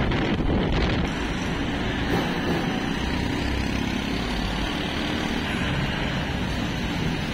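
Steady low rumble of a double-decker bus driving along, heard from its upper deck, with engine and road noise blending into the traffic around it.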